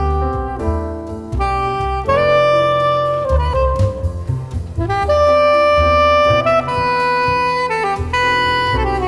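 Music: the instrumental break of a soft pop ballad, with a horn playing a slow melodic solo of long held notes over bass and accompaniment.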